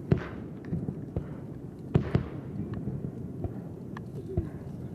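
Distant aerial firework shells bursting: a sharp bang at the start and another about two seconds in, each trailing off, with smaller pops in between.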